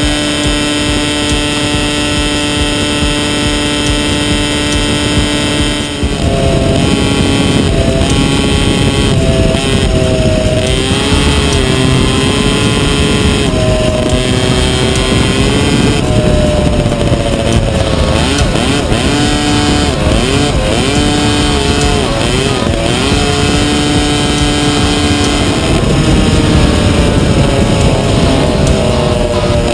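Vintage McCulloch 100cc two-stroke kart engine running flat out, heard from on board. It holds a steady high pitch for about the first six seconds. After that its pitch falls and climbs again and again through the corners.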